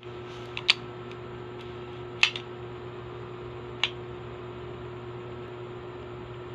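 Sharp metallic clicks from a handgun being handled: three loud ones within the first four seconds and a few faint ones, over a steady low hum.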